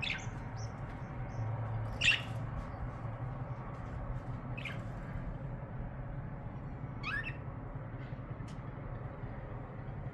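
A bird giving short, sharp calls about every two to three seconds, five in all, over a steady low background hum.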